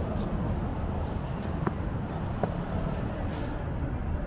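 Steady low traffic rumble of a busy city street, with two faint clicks near the middle.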